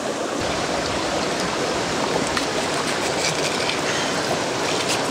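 Creek water running steadily over rocks.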